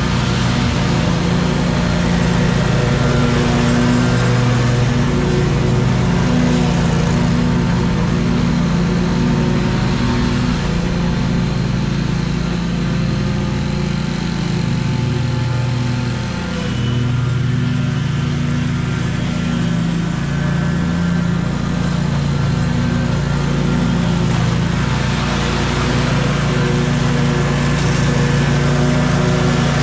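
Lawn mower engine running steadily at an even speed, with a brief dip about halfway through.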